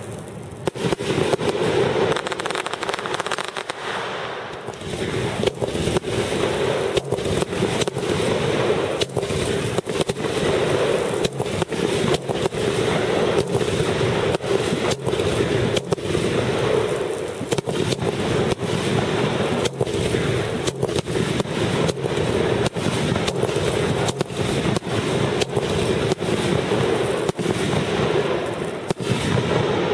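Aerial fireworks shells bursting in a rapid, continuous barrage, the bangs and crackles following one another many times a second, with a short lull about four seconds in.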